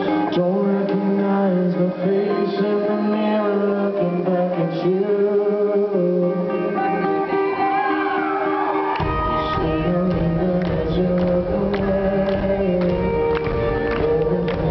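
Live rock band playing a ballad: guitars with a man singing. About nine seconds in the bass comes in heavily and the sound fills out.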